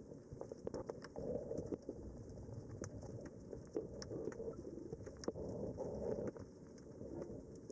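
Muffled underwater ambience: an uneven low rumble of water movement with many scattered sharp clicks and crackles.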